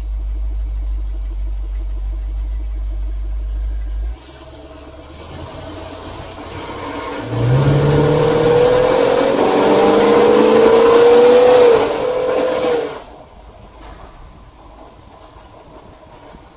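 Ford E-350's 351 Windsor V8 engine: a steady low rumble, then the engine revving up under hard acceleration with its pitch climbing for several seconds, before dropping suddenly back to a quiet run. The owner is chasing a thump-thump noise; he also notes a cracked passenger-side exhaust manifold, which he doubts is the cause.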